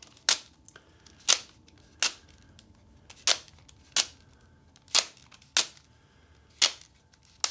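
Spring-loaded bit mechanism of a Retractabit switchblade-style screwdriver snapping as the slide switch shoots the bit out and pulls it back. It makes about eight sharp plastic clicks, roughly one a second and slightly uneven. The mechanism is being tested in a new handle and is still not working properly.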